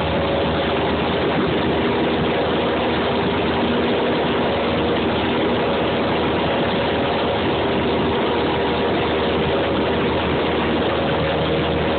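Light aircraft's engine and propeller running steadily in flight, heard from inside the cabin: an even, unchanging noise with a few steady engine tones under a constant hiss of wind and airflow.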